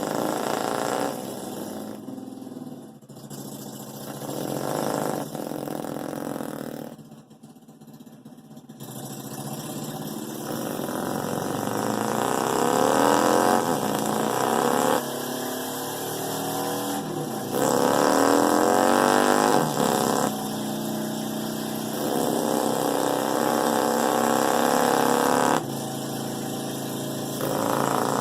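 A man's vocal imitation of a Harley-Davidson motorcycle engine: a mouth-made engine sound that idles, then revs up and down in repeated rising glides from about ten seconds in.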